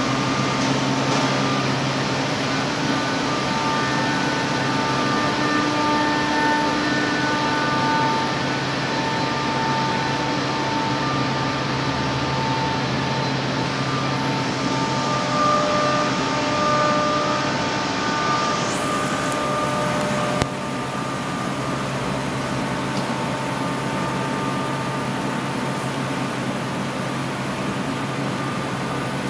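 Steady industrial hum of a glass tempering furnace line running: a continuous fan-like noise with a low drone and several steady whining tones. The sound shifts abruptly about two-thirds of the way through.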